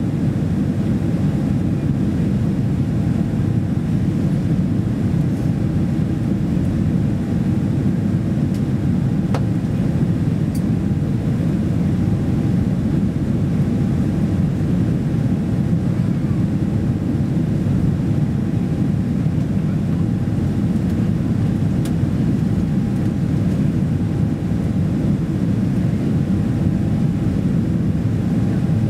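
Steady in-flight cabin noise of a Boeing 767-300 airliner: an even low roar of the engines and the air rushing past the fuselage, with a faint steady hum above it.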